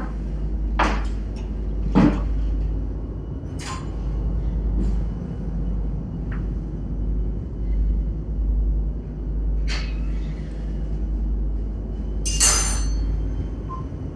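Scattered sharp knocks and clicks, about six spread out at uneven gaps, over a steady low hum; the loudest, near the end, rings briefly.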